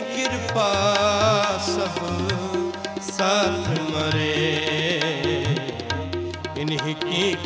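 Sikh kirtan music: harmoniums holding steady chords with a tabla beat underneath, and a wavering, ornamented melodic line over them.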